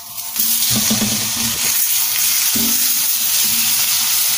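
Minced chicken-and-beef pancake sizzling in a hot frying pan as it is flipped with a spatula; the sizzle jumps louder about half a second in, when the meat lands back on the pan.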